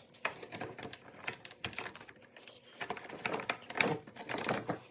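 Irregular clicks and knocks of tools against a small engine's metal and plastic parts, with a denser run of clicking near the end, as the spark plug is worked out of a two-stroke leaf blower.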